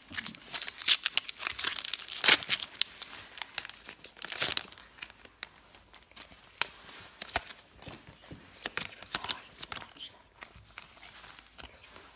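Foil wrapper of a Pokémon Trading Card Game booster pack crinkling and tearing as it is ripped open, loudest in the first few seconds, followed by lighter, scattered crinkles and clicks as the pack is handled.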